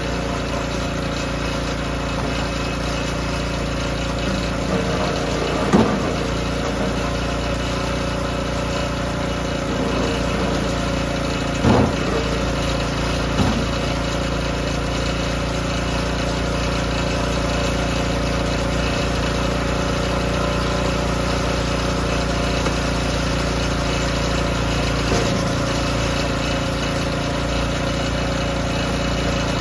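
The small gas engine of a DR K28 Pro flywheel log splitter runs steadily, with a few sharp cracks and knocks as hardwood is split and handled, the loudest about six and twelve seconds in.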